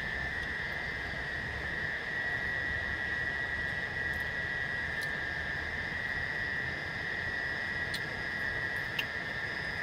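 A steady high-pitched chorus of night insects, most likely crickets, droning continuously over a faint hiss, with a couple of faint clicks near the end.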